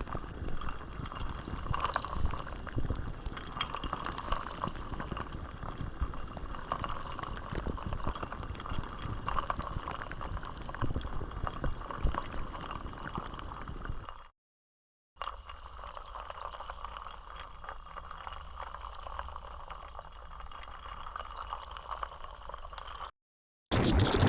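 Designed sound effect for a stand: a dense, crackling, liquid-like bubbling and dripping texture. It cuts out briefly about fourteen seconds in, comes back quieter and thinner, then stops again near the end.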